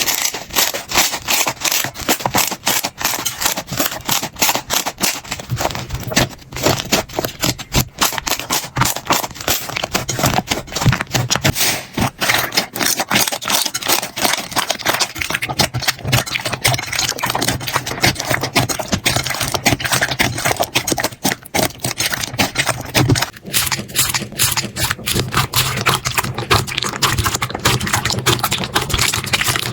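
Slime being squished and worked, giving a dense, continuous stream of small crackles and pops.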